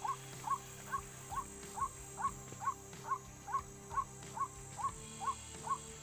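White-breasted waterhen (ruak-ruak) calling: one short, upward-hooked note repeated steadily, a little over twice a second.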